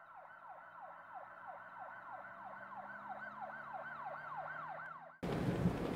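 Faint emergency-vehicle siren in a fast yelp, its pitch sweeping up and down about three times a second. It cuts off suddenly about five seconds in.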